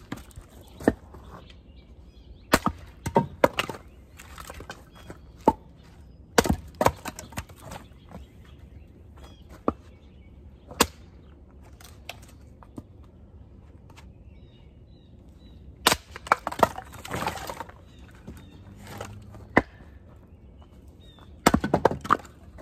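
Firewood being chopped into small sticks: sharp blows of a blade into wood, coming irregularly, some in quick runs of two or three and with pauses between, with cracks of splitting wood and pieces clattering down.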